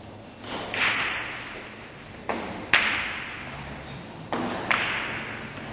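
Carom billiard shot: the cue strikes the ball about half a second in, then a series of sharp clicks as the balls knock against each other and the cushions, each with a short echoing tail.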